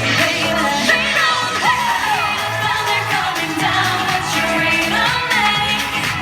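K-pop dance song with a woman singing over a steady beat.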